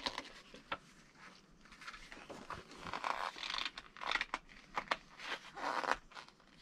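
Plastic parts bags and paper packaging from a radio-controlled car kit box crinkling and rustling as they are handled, in irregular bursts with small clicks.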